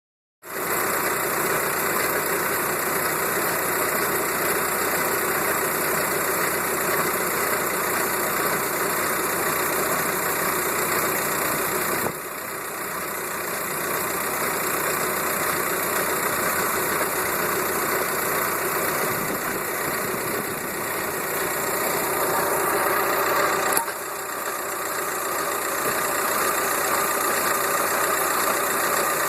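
VW Golf Mk4 idling in fifth gear with its front wheels spinning off the ground, making a repeating shunk-shunk-shunk noise from the front drivetrain. The owner suspects a bad front wheel bearing.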